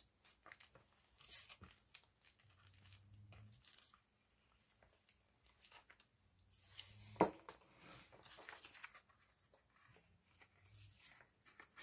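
Faint scratchy rubbing of a glue stick across paper and the rustle of paper being handled and pressed down, with a single sharp click about seven seconds in.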